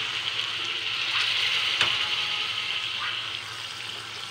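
Water just poured into a metal wok of frying spice paste and fish, sizzling with a steady hiss that slowly dies down. A light tap about two seconds in.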